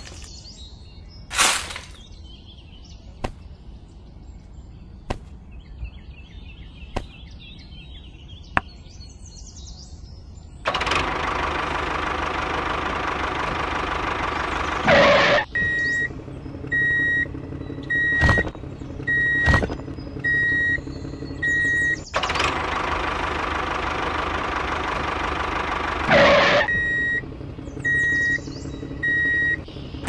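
A few light, evenly spaced clicks, then a heavy construction vehicle's engine running steadily, with a reversing alarm beeping about once a second in two spells.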